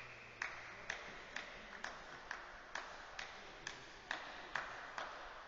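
A tennis ball bounced over and over with a racket, sharp ringing taps about twice a second that stop near the end.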